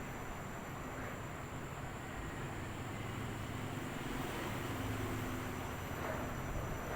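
Washing machine running: a steady mechanical rumble, with a low hum that grows stronger in the middle.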